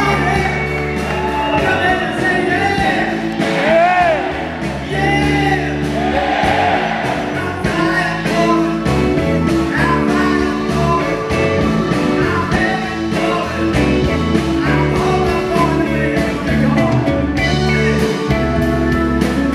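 Live rock band playing, with electric guitars, bass and drums under a steady beat and a man singing over it. His voice bends up and down most in the first half.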